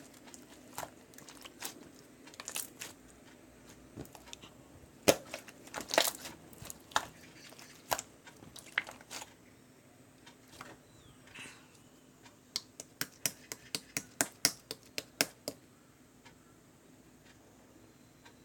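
Slime being squeezed and poked by hand, giving sharp crackling clicks and pops at irregular intervals. About twelve seconds in, a quick run of clicks at about five a second lasts a few seconds.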